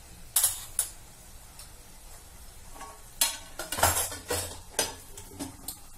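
Metal spoon clinking and scraping against a pan of masala as spices are worked in, in irregular sharp strokes that come thickest in the second half, over a faint sizzle of the masala frying.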